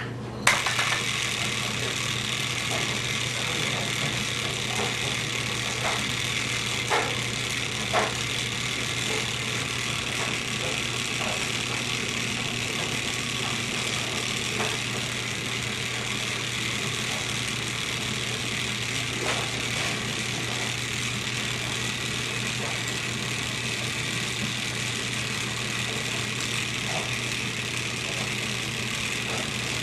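A steady low hum and hiss with a few short, light clicks of homemade dominoes being set down by hand.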